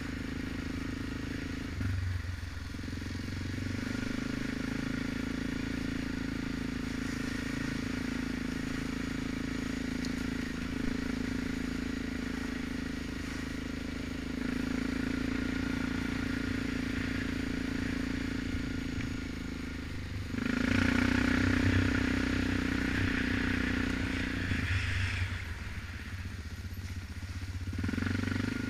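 An ATV's single-cylinder engine running under way, heard from on board the quad. The engine note holds steady, then swells louder a few times, most strongly for about four seconds after the two-thirds mark.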